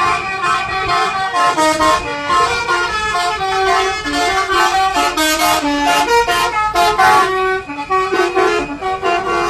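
Bus telolet horns, multi-tone horns playing short melodic tunes, with several buses answering and overlapping one another. Their notes change pitch in quick steps.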